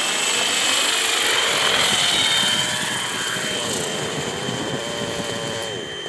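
Rave ENV 90 nitro RC helicopter's glow engine and rotor running with a high whine as it comes down to land. The sound eases off over the second half, and the engine note drops near the end.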